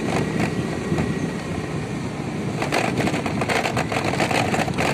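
Vehicle moving over a rough, newly earthed dirt-and-stone road: a steady rumble with rattling and jolting, which grows denser past the middle.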